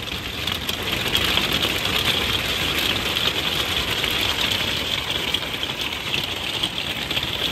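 Strong wind buffeting a soft-sided pop-up truck camper: a steady rush of wind with the canvas walls flapping and rattling against the frame throughout.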